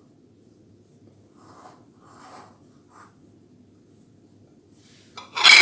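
Hand kneading crumbly cookie dough in a glass bowl: soft rubbing and scratchy rustling of the dough against the bowl, with a brief loud clatter near the end.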